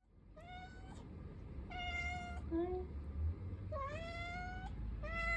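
A kitten meowing repeatedly: four high-pitched meows about a second apart, with a couple of short squeaky calls between the second and third.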